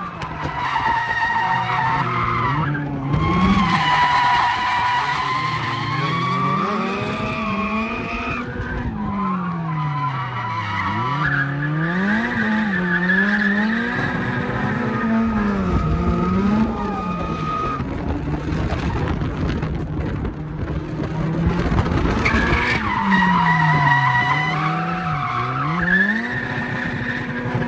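Nissan Bluebird's SR20 drift engine revving up and down over and over while its rear tyres squeal and smoke through a drift. The engine pitch swings every second or two, and the squeal drops out briefly a few times as the car transitions between corners.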